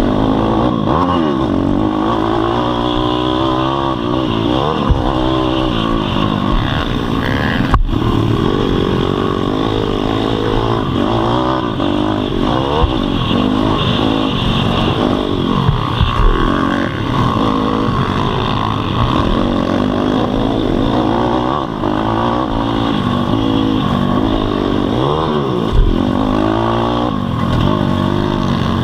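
Pit bike's single-cylinder four-stroke engine heard from on board while racing, its pitch rising and falling again and again as the rider revs through the gears. One sharp knock about eight seconds in.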